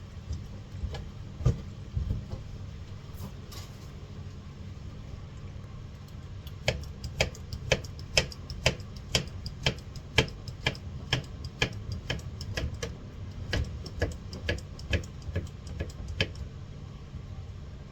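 Knife chopping fruit against a cutting surface: a few scattered taps, then from about a third of the way in a steady run of sharp chops about two a second, stopping near the end, over a steady low hum.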